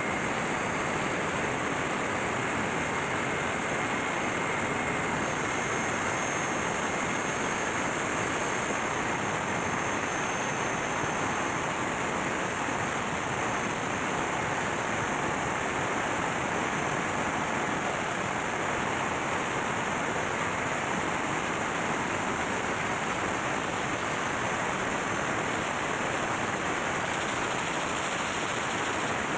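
MAN B&W auxiliary diesel generator engine running under load, a loud, steady, dense noise with no clear beat or pitch.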